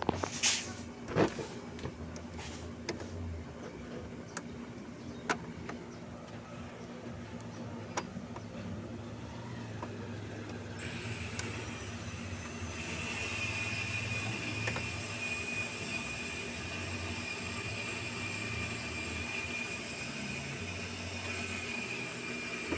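Small clicks and knocks of screws and plastic parts being handled while a synchronous swing motor is taken out of an air cooler, over a steady low hum. About halfway through, a steady hiss with a thin high whine joins in.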